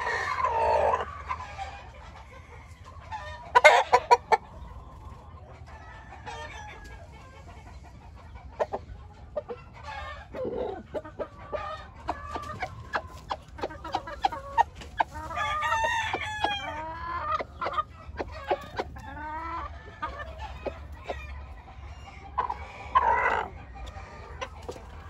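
Gamecock roosters clucking and crowing in a run of short calls, with a short loud burst about four seconds in.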